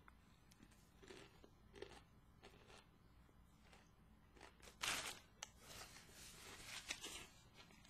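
Faint chewing and crunching of a bite of a toasted vegetarian sub sandwich, with a short louder burst of noise about five seconds in.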